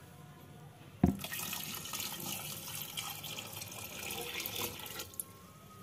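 Water poured from a jug into an aluminium pot of cut potato cubes: a knock about a second in, then a steady splashing pour for about four seconds, stopping near the end.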